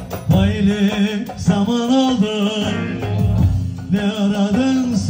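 Turkish folk song performed live: a man sings a long, wavering melodic line over bağlama (long-necked saz) accompaniment, both amplified through a PA.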